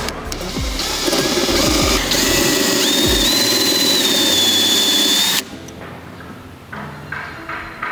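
A power tool's motor runs for about four and a half seconds, its whine stepping up in pitch partway through, then cuts off abruptly.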